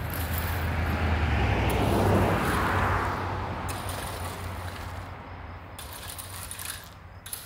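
A vehicle passes by, its noise swelling to a peak about two seconds in and then fading away. Near the end come a few light metallic clinks.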